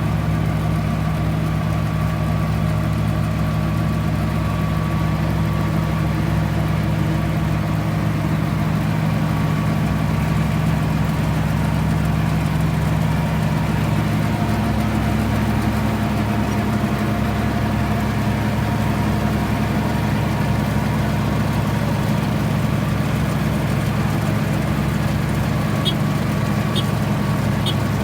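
Farm machine engine running steadily at a constant speed, its pitch shifting slightly about halfway through. A few faint ticks near the end.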